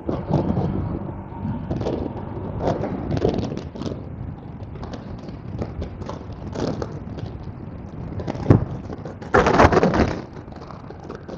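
Motorcycle ride heard from the rider's microphone: wind buffeting the mic over the running bike, with scattered knocks and thumps, a sharp knock about eight and a half seconds in and a louder rush of noise just after it.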